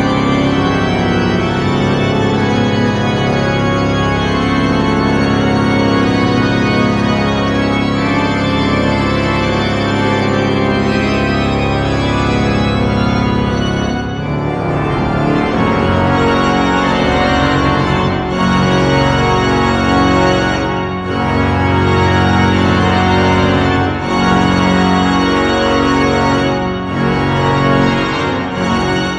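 Pipe organ playing loud, full sustained chords over a low pedal bass. About halfway through, the held texture gives way to separate chords with short breaks between them.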